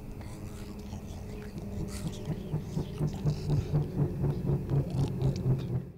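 Horror-film creature sound effect: a low, growl-like pulsing at about four pulses a second that grows louder from about two seconds in, with scattered clicks and crackles over a low hum.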